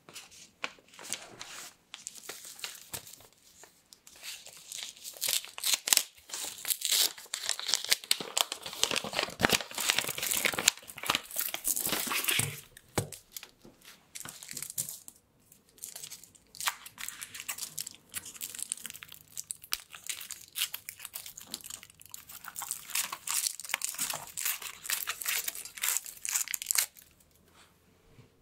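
Two chocolate bars being unwrapped by hand at close range: the paper outer wrappers are pulled off, then the foil inner wraps are crinkled and peeled away. Continuous rustling and crinkling, busiest in the first half, stopping shortly before the end.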